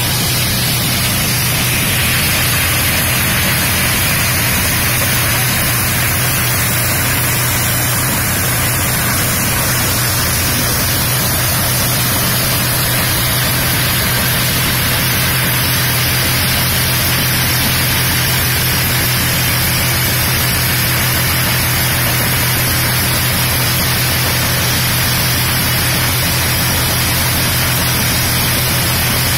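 Tractor-powered maize thresher running steadily: a constant hum from the engine under an even rushing noise from the threshing machine as cobs are fed in.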